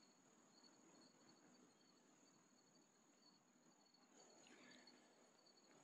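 Near silence with faint crickets chirping in an even, rapid pulse over a faint high steady tone.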